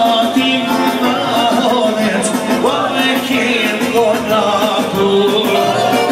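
Live Albanian folk song: a man sings through a microphone and PA over an amplified band, his voice wavering and ornamented over a steady accompaniment.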